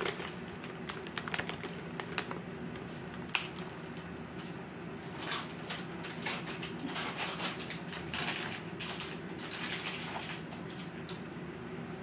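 Thin plastic bag crinkling and rustling in irregular crackly bursts while flour is tipped out into a stainless steel bowl, over a steady low hum.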